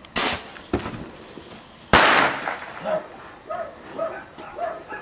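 Firecrackers going off: three sharp bangs in the first two seconds, the last and loudest about two seconds in. Several short pitched cries follow.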